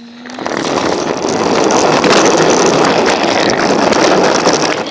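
Toy remote-control car driven flat out, heard from a camera taped onto it: a loud rushing noise of motor and wheels that builds over the first second, holds steady, and stops suddenly near the end.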